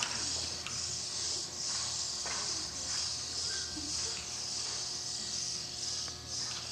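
A high-pitched hiss that swells and dips in waves about every two-thirds of a second, over a low steady hum, with a few faint soft thuds.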